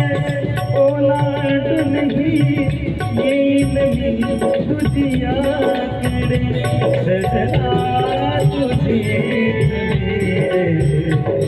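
Music accompanying a Marathi wedding song: sustained melodic tones over tabla and light percussion keeping a steady beat.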